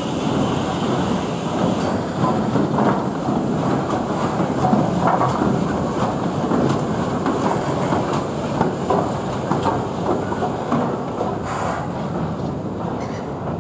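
BR Standard Class 4MT 2-6-0 steam locomotive running light past at low speed, its wheels clattering in a dense run of clicks and knocks over the pointwork and rail joints.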